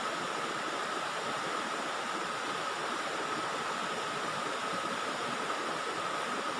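Steady rush of flowing river water, with a thin, steady high-pitched whine over it.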